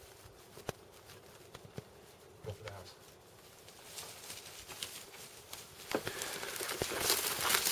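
Footsteps and rustling, scattered at first, then building into a steady crunching patter that grows louder toward the end, as if someone is walking up close. A brief faint voice is heard about two and a half seconds in.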